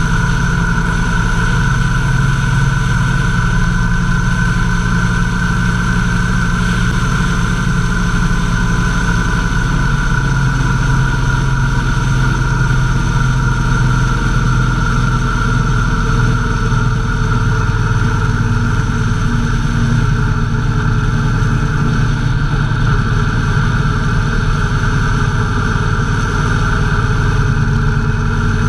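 Motorcycle engine running at a steady cruise, its pitch shifting a little a few times, over an even rush of wind and road noise.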